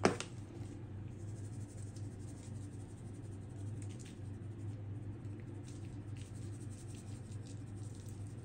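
Dry seasoning shaken from a spice shaker bottle onto raw beef neck bones: a sharp click at the start, then faint, light scratchy ticks over a steady low hum.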